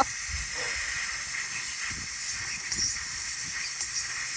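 Air hissing steadily out of a tire's valve stem as its Schrader valve core is being unscrewed, letting the tire deflate.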